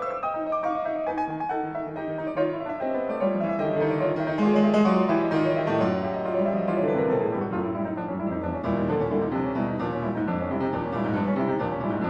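Solo classical piano playing a dense passage of many quickly struck notes and thick chords in the low and middle registers, growing louder a few seconds in.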